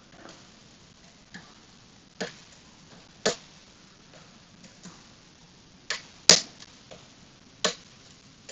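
Scattered sharp metallic clicks from a hook pick and tension wrench working the spool pins of an ASSA Max+ restricted lock cylinder, about six clicks at irregular intervals, the loudest about six seconds in.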